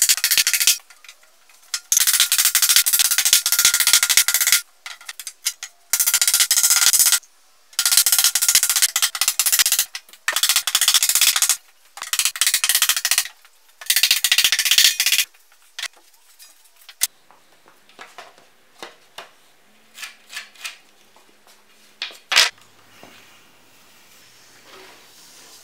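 Rough scraping or rubbing noise on wood, in about seven loud stretches of one to three seconds each that start and stop suddenly, ending about 15 seconds in. After that come only light clicks and knocks, with one sharp click about 22 seconds in.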